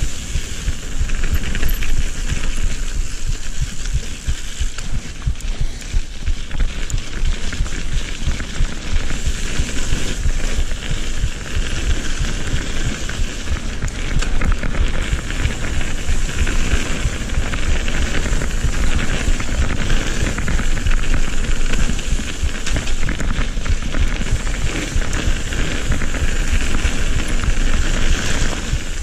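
Mountain bike riding fast along a dirt and gravel forest trail: a steady crunching rush of knobbly tyres over the ground, the bike rattling over bumps, and wind buffeting the helmet camera's microphone with a low, gusty rumble.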